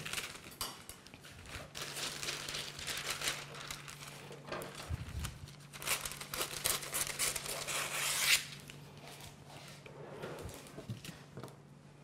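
A sheet of baking parchment crackling and rustling as it is handled, cut with scissors and spread over a baking tray. The crackling is loudest towards the end and stops suddenly about eight seconds in.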